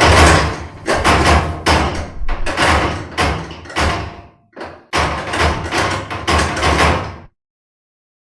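Loud, rapid banging on a door, two to three heavy knocks a second, with a brief pause about four seconds in. It cuts off suddenly about seven seconds in. This is a horror-style door-pounding sound effect.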